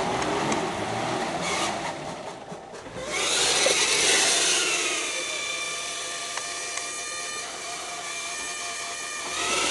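Nissan Patrol GR stuck in a mud bog. For the first few seconds there is mixed mechanical and mud noise. About three seconds in, a loud high whine starts, drops slightly in pitch, then holds steady until the end.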